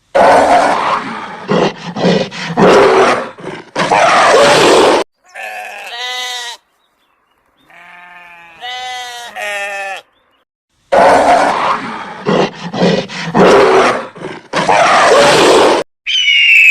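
Animal calls: long, harsh, loud grunting calls, broken in the middle by a few seconds of shorter, pulsed, bleat-like calls, with a high-pitched call starting near the end.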